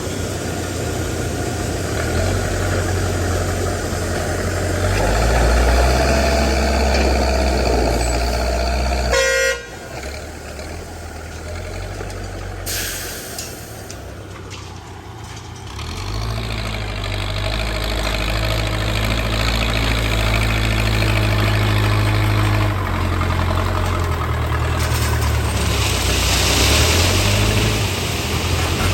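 Backhoe loader's diesel engine running and working, its low drone rising and falling with the load. A short pitched toot comes a little over nine seconds in, and the level drops sharply just after it.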